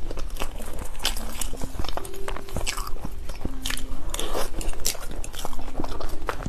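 Close-miked mukbang eating of a soft mousse cake: a metal spoon scoops the mousse, then comes wet chewing with many quick, irregular mouth clicks and smacks.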